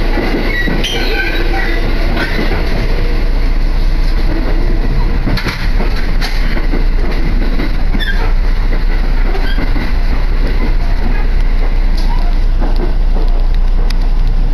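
Inside a moving electric train car: a steady rumble of wheels and running gear on the rails, with a few sharp clacks from the wheels.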